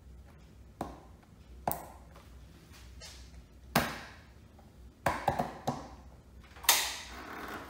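Sharp plastic clicks and knocks from a Motoparty clip-on motorcycle windscreen extension being angled up by hand and its adjustment clamps being worked. There are about seven of them at irregular intervals, the loudest near the end.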